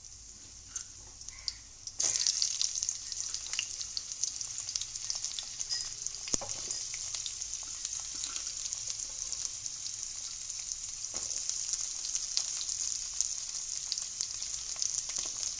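Cubed potatoes sizzling as they fry in hot oil in a kadai, with scattered crackles. About two seconds in, more potatoes go into the oil and the sizzle jumps much louder, then holds steady.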